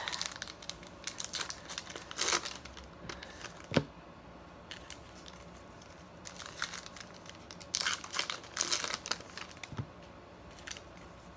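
Topps Heritage baseball card pack wrapper being torn open and crinkled by hand, in irregular bursts, with one sharp click a little under four seconds in.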